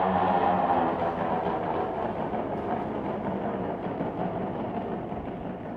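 Motorcycle engines running inside a steel-mesh globe-of-death cage, a dense mechanical din that grows steadily fainter.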